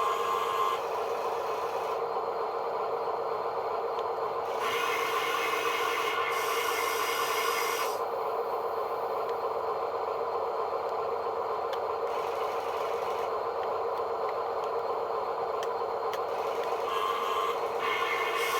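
A small electric motor whining steadily, with a rasping, scraping noise over it that comes and goes every few seconds.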